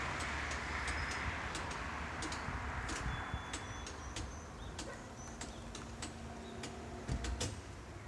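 Road traffic noise fading away over the first few seconds, leaving quieter street ambience with small birds chirping and scattered sharp clicks. A car engine hums faintly near the end.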